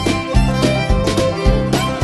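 Background music with a steady beat, an upbeat country-style tune with plucked strings.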